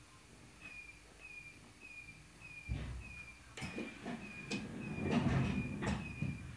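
Inside a stopped EN57 electric multiple unit: a short high beep repeats about every two-thirds of a second. A few seconds in come several sharp knocks and a low clatter, loudest about five seconds in, like the sliding doors working.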